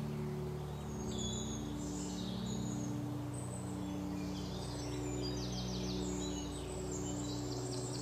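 Soft ambient music of slowly changing held notes, with birds chirping and a couple of quick high trills over it.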